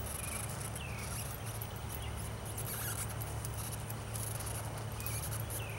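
Outdoor ambience: insects chirring in high-pitched pulses every second or so over a low steady hum, with a few faint short chirps.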